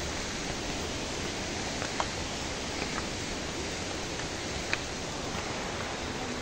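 Steady rushing of water from a waterfall or mountain stream, with a few faint ticks.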